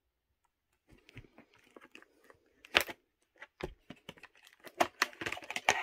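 White plastic clamshell VHS case being handled and opened: scattered clicks and crackles of plastic starting about a second in, with one loud click a little under three seconds in and a quick run of clicks near the end.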